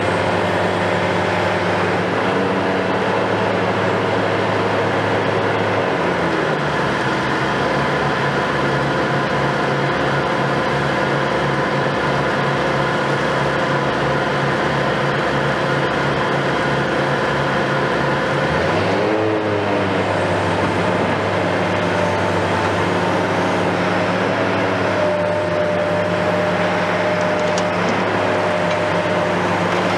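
Hitachi KMC 520 BTV high-reach demolition excavator's engine and hydraulics running steadily. From about six seconds in, the low hum turns to a rapid pulsing. Near nineteen seconds the pitch dips and rises, then the steady hum returns.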